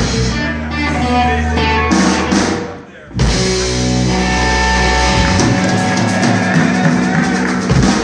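Live rock band playing loudly: electric guitars over a drum kit. The band cuts out for a moment about three seconds in, then comes straight back in.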